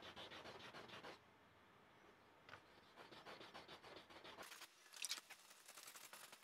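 800-grit sandpaper rubbed by hand over a car bumper's scratched paint: quick back-and-forth scratchy strokes in bursts, pausing for about a second and a half near the start, with one louder scrape about five seconds in.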